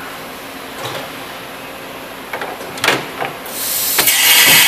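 Matsuura MC-1000V CNC vertical machining center milling metal: steady machine noise with scattered sharp ticks and clatter of chips. About three and a half seconds in, a much louder high hiss starts.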